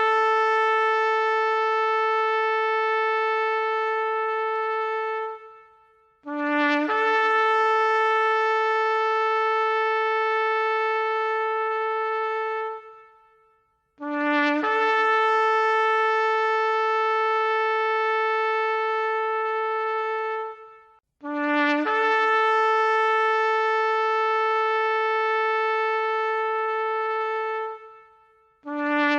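Shofar (ram's horn) sounded in long, steady blasts. Each blast opens with a brief lower note that breaks up to a higher note, held for about five to six seconds before dropping away. Four blasts come with short gaps between them, and a fifth begins near the end.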